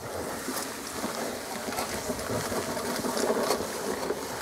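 Gasoline push mower's Briggs & Stratton engine running steadily while the mower is pushed over the lawn, mowing grass.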